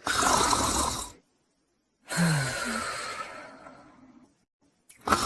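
A sleeping borzoi snoring. A loud, rough snore with a low flutter is followed by a longer breath that fades away, and the next loud snore starts near the end.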